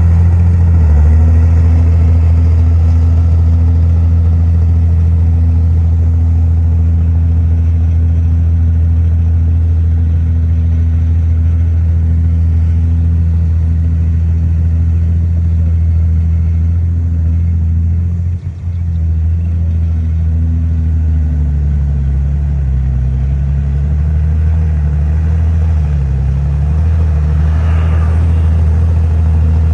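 Heavy diesel engine of earthmoving machinery running steadily with a deep hum, its pitch shifting slightly with load in the second half. The level dips briefly about eighteen seconds in.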